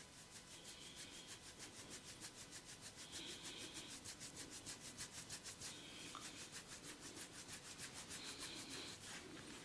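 Faint, rapid rubbing of hands briskly massaging a person's head, in quick even strokes several times a second.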